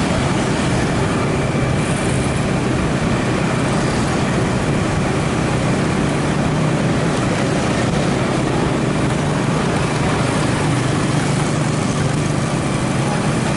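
Motorcycle engine running steadily at cruising speed, heard with a steady hum under road and wind noise on the microphone.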